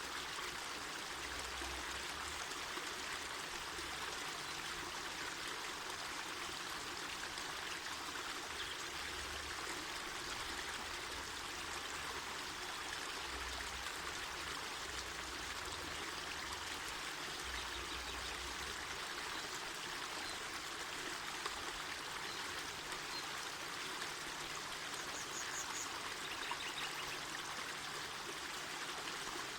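Mountain forest river flowing: a steady, even rush of running water.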